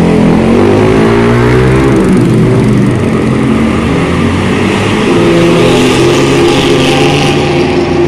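Diesel engine of an intercity bus revving as it pulls away, its pitch climbing in the first couple of seconds and then settling into a steady, deep rumble.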